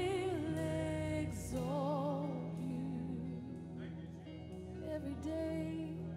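A woman singing a worship song, holding long notes with vibrato, over a steady instrumental backing of sustained low notes.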